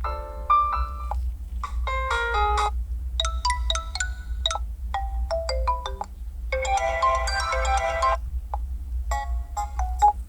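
Short previews of about six different ringtones from a ZTE Blade A53+ ringtone list, each playing through the phone's speaker for a second or so before it cuts off and the next one starts. A steady low hum sits underneath.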